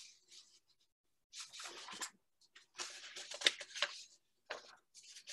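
Rustling and scratching close to the microphone, as of paper being handled, in a few short bursts with pauses between.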